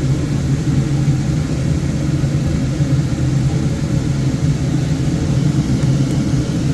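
Woodturning lathe running, a steady low motor drone with no change in speed.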